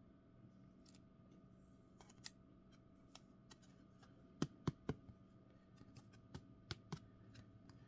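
Light plastic clicks and taps from a sleeved trading card being slid into a rigid plastic top loader, with a quick run of three sharper clicks about halfway through and a few more a couple of seconds later.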